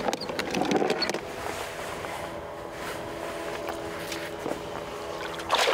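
A hooked zander splashing at the water's surface as it is played beside the boat, once about half a second to a second in and again near the end, over a steady motor hum.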